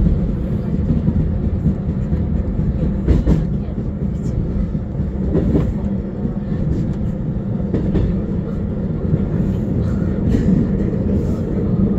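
Seoul Subway Line 1 electric commuter train running at speed, heard from inside the carriage: a steady low rumble with a few sharp clicks along the way.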